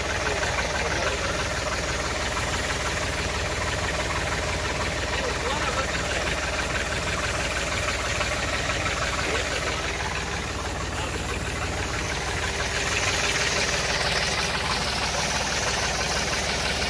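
An engine or motor running steadily with a low, fast throb. A brighter hiss swells in about twelve seconds in.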